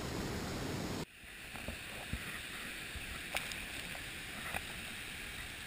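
Steady roar of a waterfall swollen with flood water. About a second in it cuts to a quieter steady rush with a few faint clicks.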